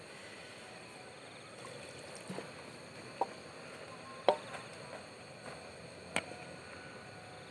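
Wooden spatula stirring catfish and rice-field snails in sauce in a metal wok, with a few separate knocks and scrapes against the pan. The sharpest knock comes about four seconds in.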